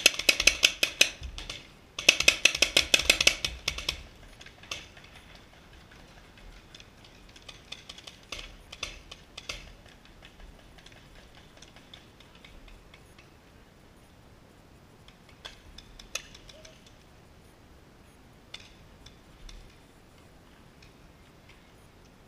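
Paintball markers firing rapid strings of shots: two long volleys of quick pops in the first four seconds, then scattered fainter shots.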